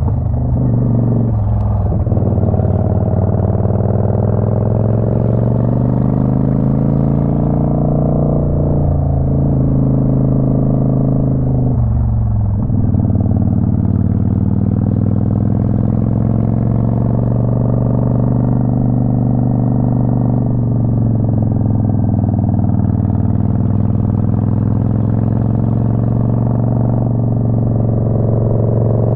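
Motorcycle engine running under way, its pitch rising and falling with the throttle, with three short breaks in the sound, about a second in, around nine seconds and around twelve seconds, where gears are changed.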